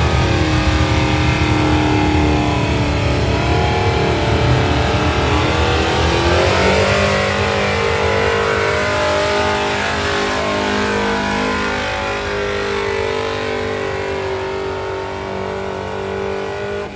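Diesel engine of an old square-body Chevrolet pickup running at high revs under load as it pulls a weighted sled. The revs climb about six seconds in, then hold steady as the pull goes on.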